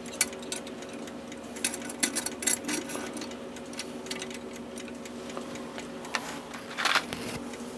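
Light, irregular metallic clicks and taps of small brass clock parts being handled and fitted into a clock movement, a cluster about two seconds in and a louder pair near the end, over a steady low hum.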